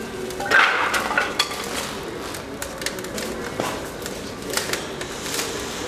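Wood fire crackling in a fireplace insert's firebox: irregular sharp pops and snaps over a soft rush of flame, with the loudest burst of crackles about half a second in.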